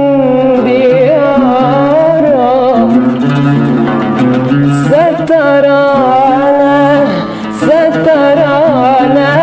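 A woman singing a slow Arabic song in long, ornamented wavering phrases, accompanying herself on an oud.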